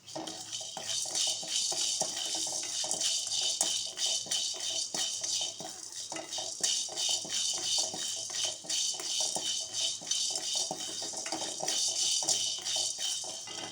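Whole peppercorns, cinnamon and cloves rattling and scraping in a dry kadai as they are stirred and dry-roasted, a dense run of small clicks. It stops abruptly at the end.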